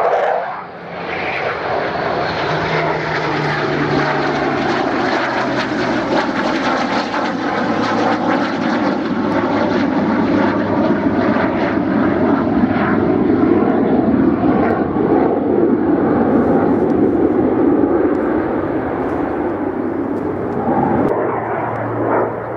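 A twin-engined Eurofighter Typhoon jet and a Supermarine Spitfire flying past together in close formation. Their combined engine noise is steady and loud, strongest around the middle and easing off near the end as they draw away.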